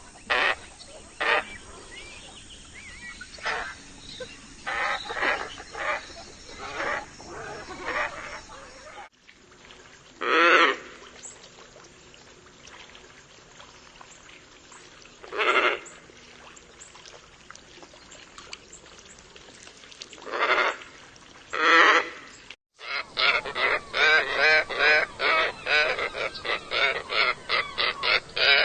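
Scarlet ibis calls: short hoarse calls, irregular at first, then single calls a few seconds apart, then many calls in quick succession near the end. The sound cuts abruptly twice between recordings.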